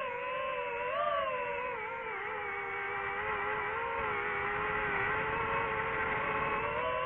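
DJI FPV drone's motors and propellers whining in flight, the pitch wavering up and down with the throttle.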